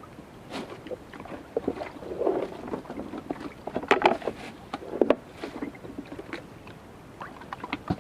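Water splashing with irregular knocks and rattles, loudest about four and five seconds in, typical of prawn traps being hauled and handled from a small boat.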